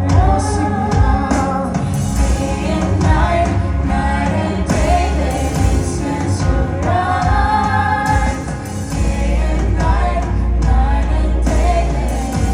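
Live gospel praise music: voices singing over instrumental accompaniment with a strong, steady bass.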